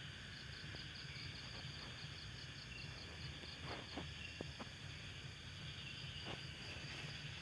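Faint insect chirping, a cricket's high-pitched trill pulsing about five times a second for the first three and a half seconds, over a steady low background hum. A few soft clicks come near the middle.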